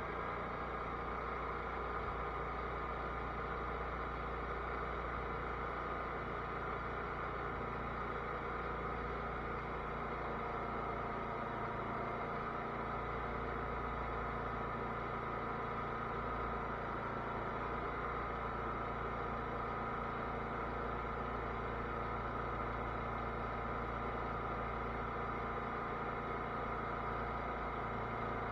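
Cub Cadet lawn tractor engine running steadily.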